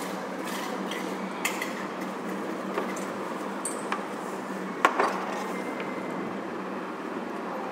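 Small parts of a microscope objective lens clicking and tapping as they are handled and fitted back together, a handful of light clicks with the sharpest about five seconds in, over steady background noise.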